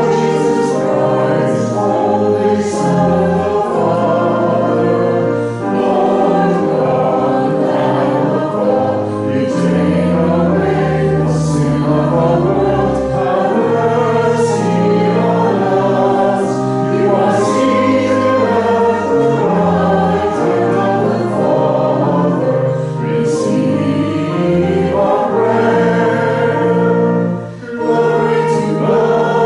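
Voices singing a traditional hymn with organ accompaniment, in held notes over a moving bass line; the music pauses briefly near the end, between lines.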